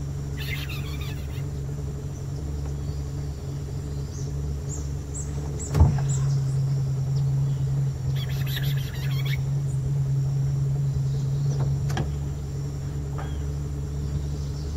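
Steady low hum of an idling motor, with a single knock about six seconds in, after which the hum runs a little louder for several seconds. Short rasping buzzes come near the start and again around eight and a half seconds, with a few faint bird chirps.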